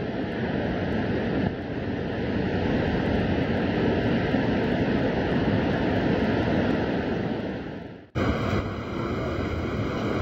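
Sea surf washing over a reef and breaking against rock, heard as a steady rush. About eight seconds in it cuts off abruptly and another stretch of breaking waves follows.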